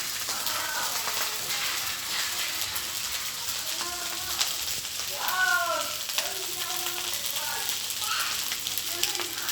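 Yangzhou fried rice sizzling and crackling in a hot pan: a steady hiss with fine crackles throughout. Faint voices come through in the background, most clearly about halfway through.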